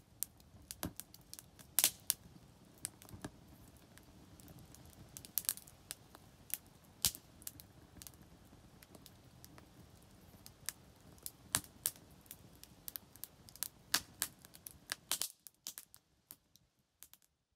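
Small wood campfire crackling in a Skotti portable grill: irregular sharp pops and snaps over a faint low hiss of flames. It cuts off about two seconds before the end.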